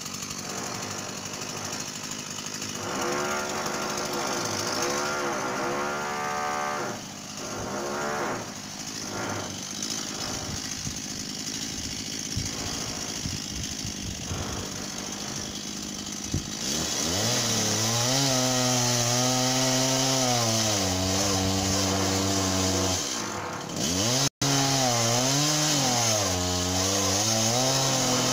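Stihl MS 170 two-stroke chainsaw running, its engine pitch rising and falling as the throttle is worked. It is quieter through the first half and louder from about halfway on, with a momentary cut in the sound near the end.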